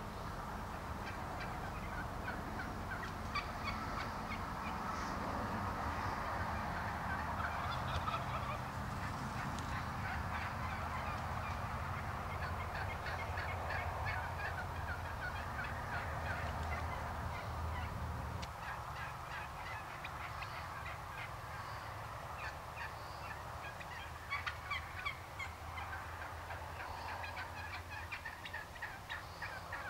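A flock of wild turkeys calling, with gobbles and many short, rapid notes overlapping. A steady low hum sits underneath and drops away about two-thirds of the way through.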